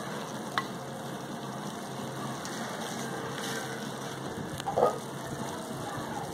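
Mutton broth boiling in an earthen clay pot over a wood fire, a steady bubbling hiss, with the meat cooked through. A single click comes just after the start and a short pitched squeak about five seconds in.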